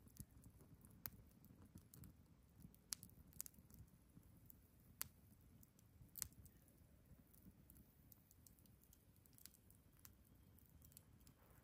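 Small wood campfire crackling faintly, with irregular sharp pops scattered through, a few louder than the rest.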